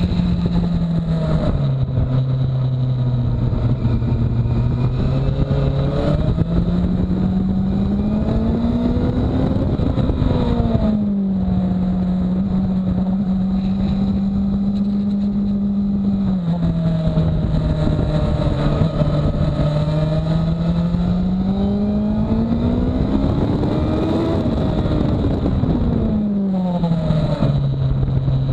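Sport motorcycle engine running hard on a race circuit. Its note climbs, drops in sudden steps at upshifts, and twice rises to a peak before falling away sharply for the next corner.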